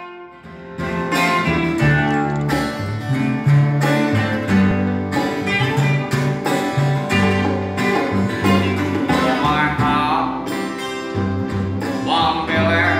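Acoustic band music: plucked guitar over changing bass notes. A wavering melody line rises above it around nine seconds in and again near the end.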